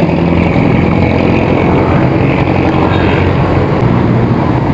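Steady, loud road noise heard from a moving bicycle in city traffic: a rush of wind on the handlebar-mounted camera's microphone mixed with the low, steady hum of nearby vehicle engines.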